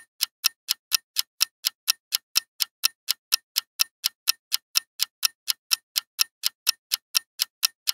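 Countdown-timer ticking sound effect: sharp, even clock-like ticks at about four a second, marking the time left to answer.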